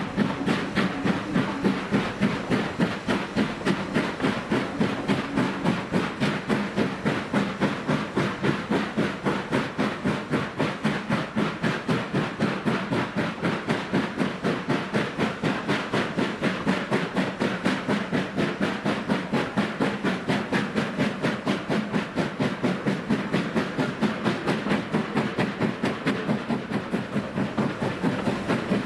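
Exhaust beats of Ivatt 2-6-2T tank locomotive 41241, a two-cylinder steam engine, chuffing in a quick, even rhythm as it works hard hauling a train up a gradient.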